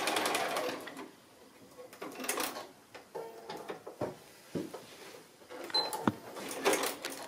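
Bernina sewing machine stitching a seam and stopping about a second in. After that come scattered clicks, a couple of sharp knocks and fabric rustling as the work is handled and drawn out from under the presser foot.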